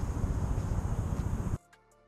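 Loud, rough rumbling noise on the microphone cuts off abruptly about one and a half seconds in. Quiet background music with soft beats takes over.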